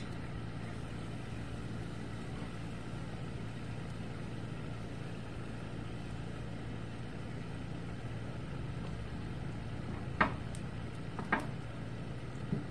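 Battered chicken pieces frying in a skillet of hot vegetable oil: a steady sizzle under a low hum, with two sharp clinks about ten and eleven seconds in.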